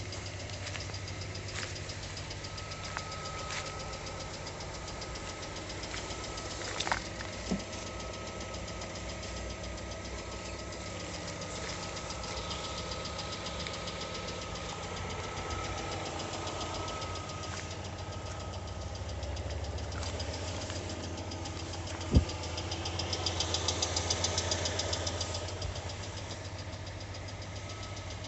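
Engine of a new Lada Largus running with a rapid knocking tick, the kind of noise that comes and goes on this engine; the cause turned out to be a factory-defective cylinder head, replaced under warranty. A single sharp click comes about two-thirds of the way through, followed by a few seconds of louder pulsing.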